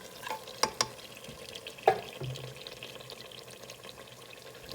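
Metal spoon clinking and scraping against a cooking pot while stirring a thick lamb curry, with a few light knocks and one louder clank about two seconds in, over a faint sizzle.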